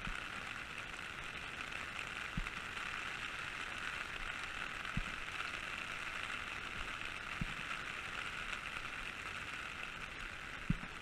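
Steady rain hiss, with four soft low thumps spaced about two and a half seconds apart.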